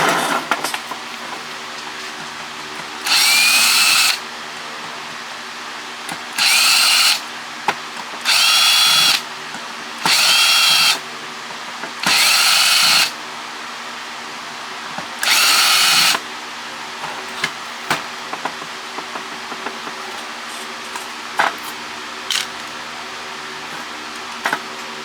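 Cordless power drill/driver run in six short bursts of about a second each, the motor whining up in pitch at the start of each burst, with small clicks between.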